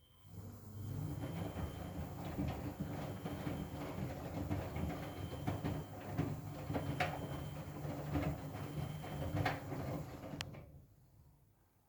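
Miele W Classic WDA111 washing machine drum turning, the laundry and water tumbling inside with a low steady hum and scattered knocks, for about ten seconds before the drum stops.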